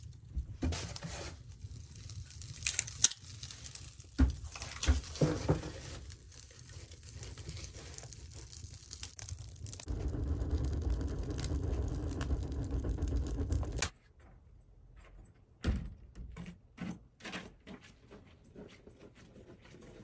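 Cast-iron wood stove being tended: metallic knocks and scrapes of the stove door and tools over a crackling wood fire. The door is then shut and the fire burns with a steady low rumble for a few seconds, which cuts off suddenly and leaves quieter scattered clicks.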